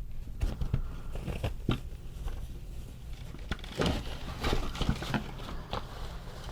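Scattered clicks, taps and rustles of hands handling an animated novelty hat, its fabric and plastic mechanism being opened up.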